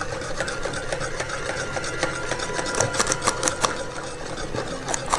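Hand-operated metal flour sifter being worked over a bowl, with a fast run of rattling mechanical clicks that is thickest in the middle.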